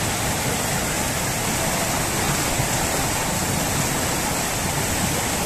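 Floodwater from an overflowing lake rushing down a street, a steady, turbulent torrent of churning water.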